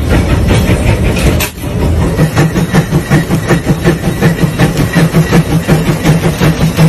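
Case steam traction engine running with an even chuffing exhaust beat, about four puffs a second. The sound drops out briefly about a second and a half in.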